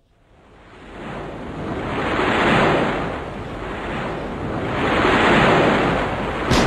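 Rushing noise with no pitch, like surf or strong wind. It fades in from silence and swells and ebbs in slow waves, loudest about two and a half seconds in and again past the middle. A sharp knock comes just at the end.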